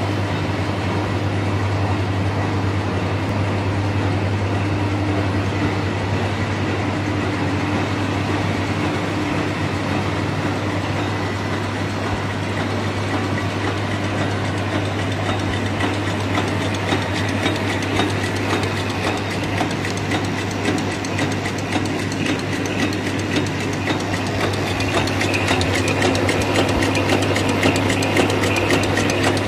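Automatic disc-feeder packing line running: a steady low hum under a fast, even mechanical clatter from the wrapping machine, which grows louder in the second half. The machine is running at about 224 packs a minute.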